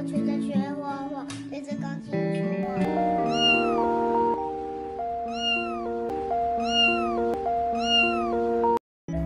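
A small kitten mewing about four times, each a high, short call that falls in pitch, over light background music with a steady melody.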